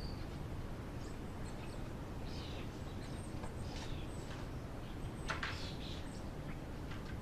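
Faint paper rustling and handling over a quiet, steady background hiss, with a few soft rustles, the clearest a little over five seconds in.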